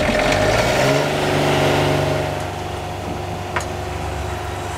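The boat's engine, just started, runs up in pitch over the first couple of seconds and then settles into a steady idle, brought on after the batteries ran so low that the boat's power cut out. One sharp click about three and a half seconds in.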